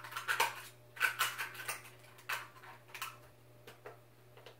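Small plastic LOL Surprise toy pieces and their wrapping handled in the hands: several short bursts of crinkling and light plastic clicking, coming in clusters roughly a second apart.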